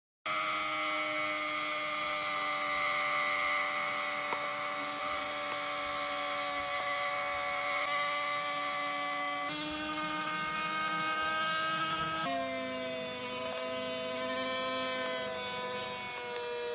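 Small high-speed electric power tool running steadily, its motor whine stepping in pitch a few times as the load changes.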